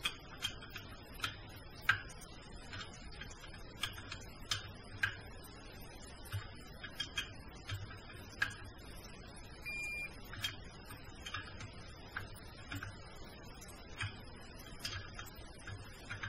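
Ratchet of a Snap-on digital torque wrench clicking in short, irregular runs as it tightens the cylinder head nuts of a 49cc Puch Maxi moped engine. A short electronic beep about ten seconds in is the wrench signalling that the set torque is reached.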